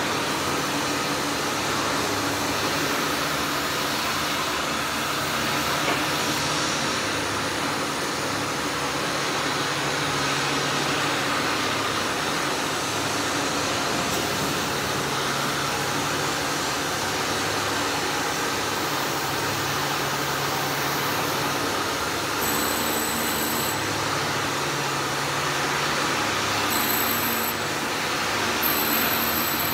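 Steady, loud industrial machinery noise in a shipyard, an unbroken mechanical hum with a low drone that comes and goes. A faint high whine cuts in and out several times in the last eight seconds or so.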